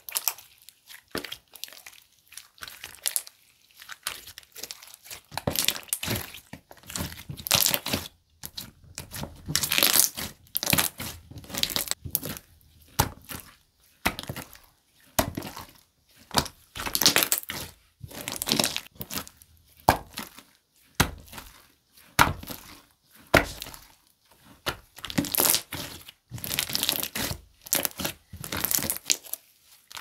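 Clear aloe-gel slime squeezed, folded and stretched by hand, making sticky crackles in irregular bursts about a second apart.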